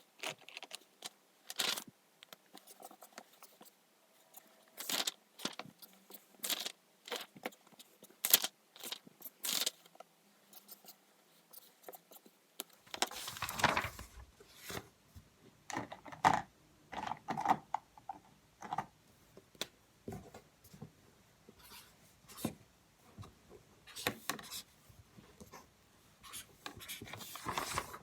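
Irregular small handling sounds at a desk: scattered clicks, taps and scrapes, with a couple of longer rustles, as of stationery and paper being handled while studying.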